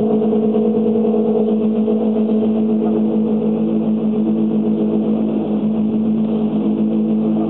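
Inboard engines of speedboats running at speed, a steady droning hum with the sound of the hull over water.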